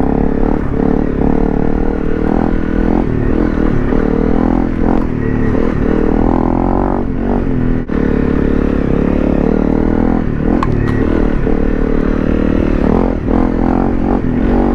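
Honda CRF250 Rally's single-cylinder four-stroke engine running under load on an off-road trail, its pitch rising and falling with the throttle. It dips briefly about eight seconds in.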